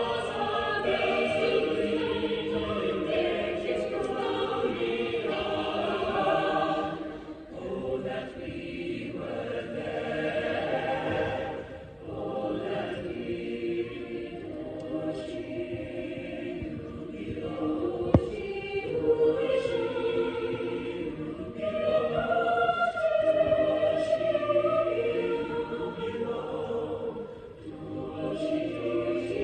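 A large choir singing in a reverberant hall, its phrases swelling and easing off with short breaks between them.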